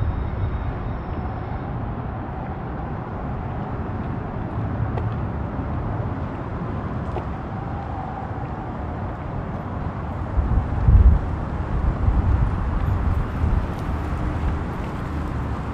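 Steady low rumble of distant road traffic, with a few louder low bursts about ten to twelve seconds in.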